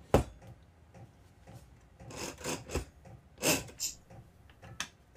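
Plastic and metal handling noises from the Vevor 5120 plunge router's rotating depth-stop turret being turned: a sharp click just after the start, then several short scraping, rasping strokes.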